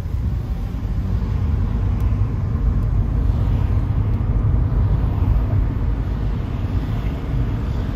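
Subaru Legacy B4 Blitzen 6 on the move, its flat-six engine and road noise making a steady low rumble that grows slightly louder early on. A faint higher sound rises in pitch around the middle.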